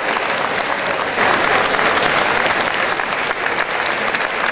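Ringside audience applauding: many hands clapping in a dense, steady patter.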